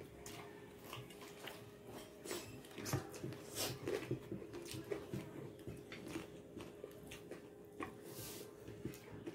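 Close-up eating sounds: biting and chewing on crispy pata, deep-fried pork leg, with irregular crisp crackles from the fried skin, over a faint steady hum. The crackles are thickest a few seconds in.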